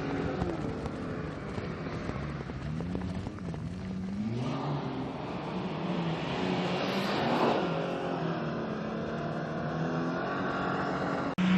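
Off-road SUV engine revving on sand dunes, its pitch rising and falling over and over as the throttle works. There is one higher surge about seven seconds in, and an abrupt louder burst near the end.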